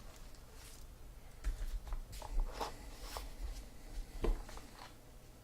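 Trading-card box and cards being handled: scattered light taps and rustles of cardboard and card stock, the sharpest a little after four seconds in, over a faint steady low hum.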